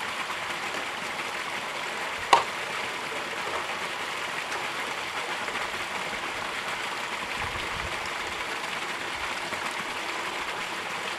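Water running off the end of a mini highbanker's sluice and splashing steadily into a plastic tub, with one sharp knock about two seconds in.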